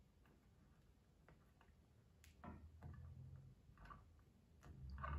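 Faint, scattered small clicks and ticks of stiff stainless steel wire being wound by hand around a screwdriver shaft.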